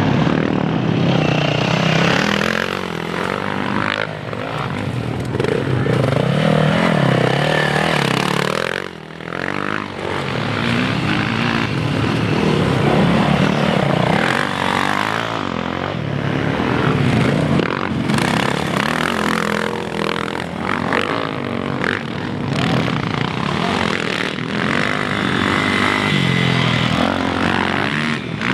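Motocross dirt bike engines revving hard and easing off, the pitch climbing and falling again and again. The sound drops briefly about nine seconds in.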